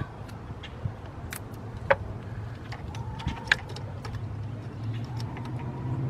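Black vinyl electrical tape being torn off and handled, giving a few small, sharp clicks and crackles over a steady low hum.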